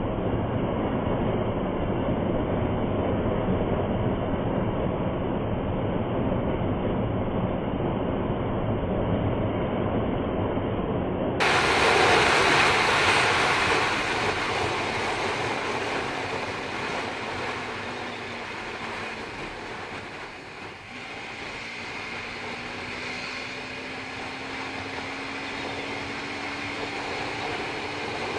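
Bajaj Pulsar NS200 motorcycle at highway speed, around 135 km/h: heavy wind rush over an action camera's built-in mic, with the single-cylinder engine running underneath. About eleven seconds in the sound abruptly turns brighter and louder. Near the end a faint engine note slowly rises in pitch.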